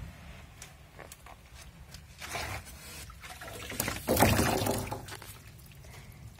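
Water sloshing and splashing as young swamp eels are scooped into a water-filled styrofoam box, with small knocks and the loudest splash about four seconds in.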